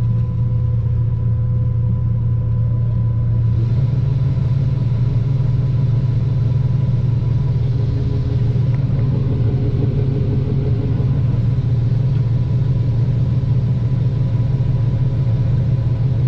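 Combine harvester running steadily with a loud, even low hum. About three and a half seconds in, the sound becomes fuller and brighter and holds there.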